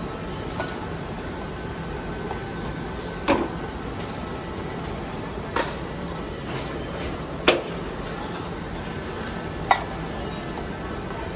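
Five sharp knocks, roughly two seconds apart, over a steady background noise; the second and fourth are the loudest.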